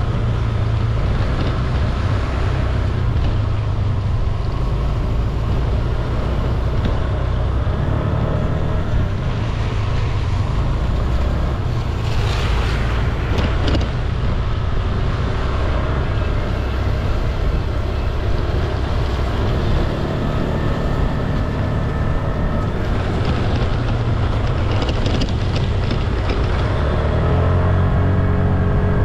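Motor scooter engine running steadily while riding, with wind rushing over the microphone; the engine note climbs near the end.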